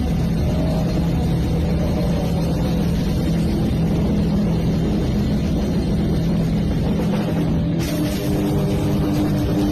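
Loud, distorted amplified instruments holding a low, droning chord during a metal band's sound check. A brighter, hissier layer joins about eight seconds in.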